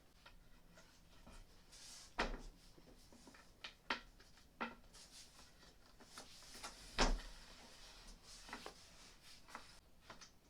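Scattered knocks and clicks of flat-pack furniture parts being handled and pushed into place, about seven in all, the loudest about seven seconds in.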